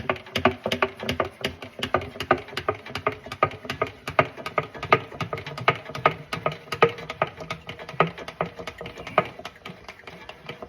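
Hand oil pump being worked to pump gear oil into the differential, making a rapid, uneven run of clicks, about five a second.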